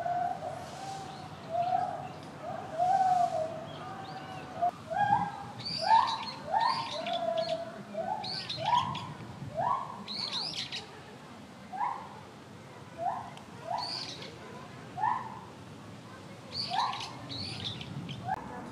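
Animal calling: a few seconds of lower, steadier hoot-like notes, then a long run of short rising hoots, roughly one a second.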